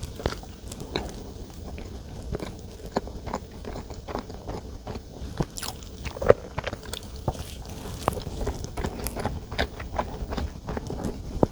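Close-up eating sounds of chocolate desserts being bitten and chewed, with many short, irregular mouth clicks.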